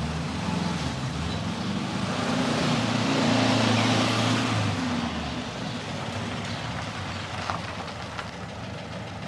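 Volkswagen Type 2 bay-window bus driving up and slowing to a stop, its air-cooled flat-four engine running. The engine is loudest about three to four seconds in, then eases to a lower, steady note.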